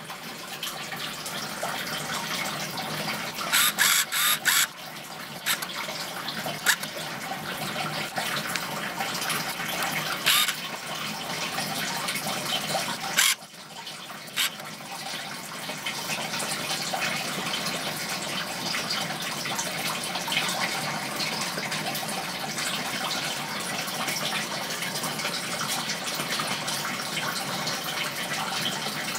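Steady rush of running aquarium water, with a quick cluster of sharp clicks about four seconds in and a few single clicks later on.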